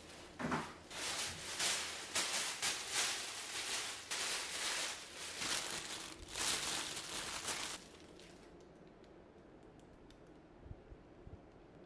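Thin plastic carrier bag crinkling and rustling as hands rummage through it, in quick irregular bursts; it stops about eight seconds in, leaving a few faint small clicks.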